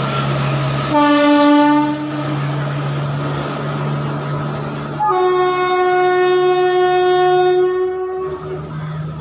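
WAG-7 electric locomotive's horn sounding two blasts: a short one about a second in, then a longer, higher-pitched one of about three seconds starting around five seconds in. Under both runs the steady low rumble of the train.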